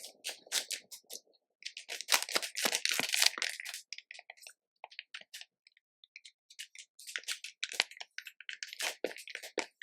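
Slime being squeezed and kneaded by hand, giving rapid sticky clicks and crackles in two dense runs, with a sparser stretch in between.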